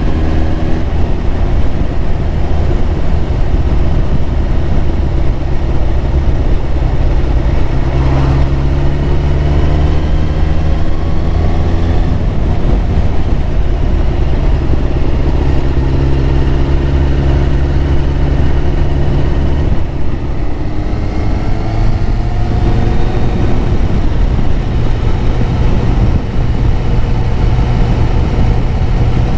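Yamaha YZF1000R Thunderace's inline-four engine accelerating on the road, its pitch climbing several times and dropping back at each gear change, over a dense steady rumble.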